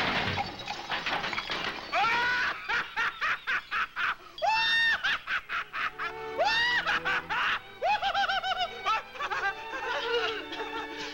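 A cartoon voice laughing in quick, high-pitched bursts with rising whoops, over background music.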